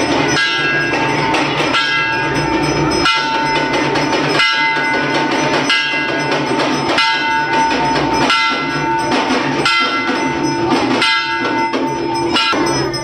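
Temple bells ringing continuously during puja, a steady metallic ringing with rapid clanging and a hard struck beat about every second and a half.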